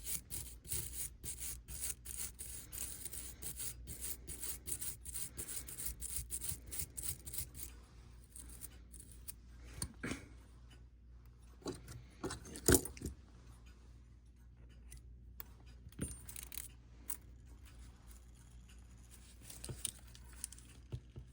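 Small metal tools and clock parts handled on a workbench: rapid light clicks and rubbing for the first eight seconds or so, then a few single clicks, the loudest about thirteen seconds in.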